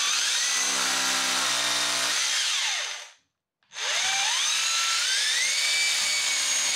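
Cordless SDS rotary hammer drill with a 5.5 mm bit boring two holes into the wall for wall plugs. Each run winds up, drills steadily and winds down; the first stops about three seconds in and the second starts a moment later.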